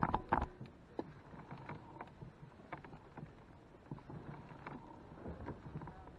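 Kayak on the water: a couple of sharp knocks at the start, then scattered lighter knocks and small splashes from the hull and paddling.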